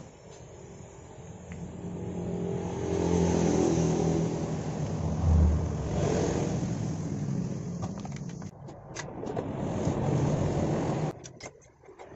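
A motor vehicle's engine running, its pitch rising and falling.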